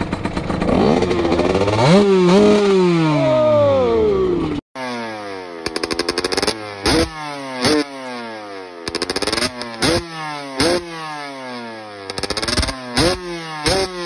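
Motorcycle engines revving, one climbing in pitch about two seconds in and then falling away. After a sudden cut, a 125 cc two-stroke TM SMR engine through a Pro Circuit R304 short silencer is blipped about a dozen times, each a sharp rev that rises and drops quickly.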